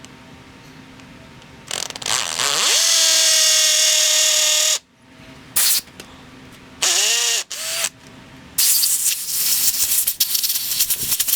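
Power drill on a concrete bit spinning up and held at speed for about two seconds, then run in short trigger bursts, and a longer rattling run near the end: drilling anchor holes in concrete.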